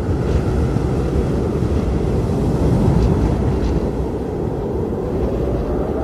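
Wind blowing steadily: a dense, low rumbling rush of noise that swells slightly about halfway through.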